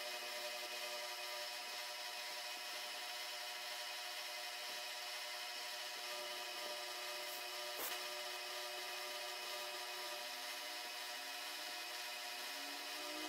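Milling machine spindle running as an end mill cuts a pocket in aluminium bar, a steady whine over a hiss of cutting. One short click about eight seconds in.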